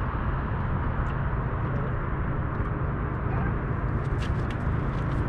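Boat motor running steadily as a low rumble. A few short, sharp clicks come about four seconds in.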